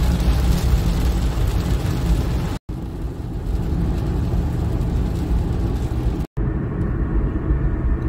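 Cabin noise inside a Honda City sedan driving on a wet highway in heavy rain: steady tyre, road and rain noise over a low rumble. It comes as three clips that cut off abruptly, about two and a half and six seconds in.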